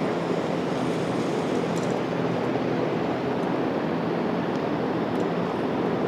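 Steady rushing drone of large floor fans blowing air, with a faint low hum under it.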